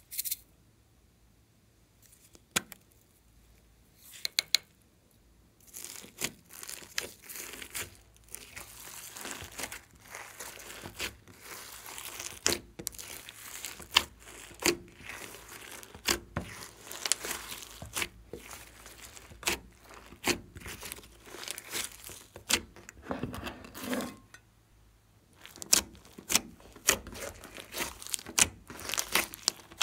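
Hands stretching, folding and squishing glossy white slime mixed with foam beads and sprinkles: sticky crackling and popping with many sharp clicks. After a few isolated clicks it starts about six seconds in, pauses briefly near the end, then resumes.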